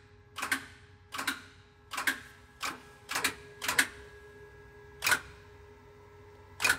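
Button clicks on an electric spring tester's control panel, about eight sharp presses spaced roughly half a second to a second apart, over a faint steady hum. The presses jog the press down to a 21-inch ride height to read the spring's load.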